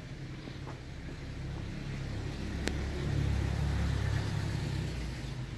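Low rumble of a car passing by, building up, holding for a second or two and fading away, with a single sharp click near the middle.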